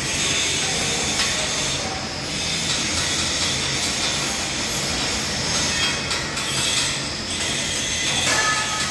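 Loud, continuous mechanical noise with metal-on-metal screeching, and a brief squealing tone near the end.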